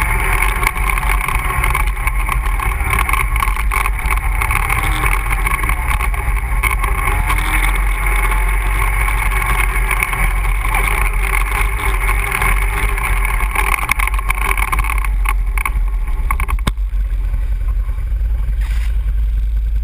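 ATV engine running while the machine rides along a trail, a steady loud low rumble with a mechanical drone above it. About three-quarters of the way through, the higher engine tone falls away and mostly the low rumble remains.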